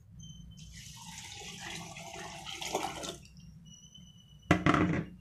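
Water poured from a tumbler into a pressure cooker of soaked rice and toor dal, splashing steadily for about three seconds. A brief, louder thud follows near the end.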